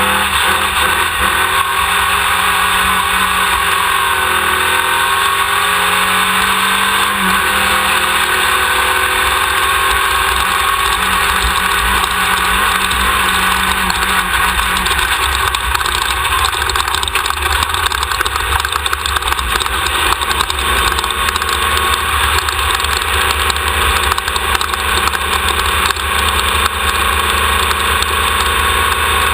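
A 1600-class off-road race car's engine running under load at speed, mixed with a dense wash of wind and terrain noise. The engine note dips and climbs back over the first few seconds, then holds steady.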